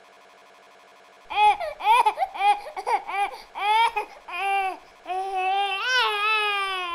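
A small child's voice, high and loud: about a second in come short rising-and-falling squealing syllables, giving way to a long drawn-out wail near the end. A faint steady hum lies under the opening second.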